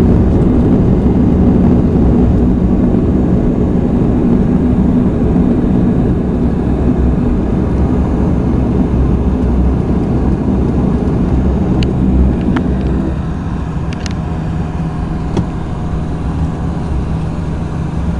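Airliner cabin noise during the landing rollout: a loud rumble of the engines and the wheels on the runway that eases as the aircraft slows, dropping off noticeably about two-thirds of the way through. A few light clicks sound in the second half.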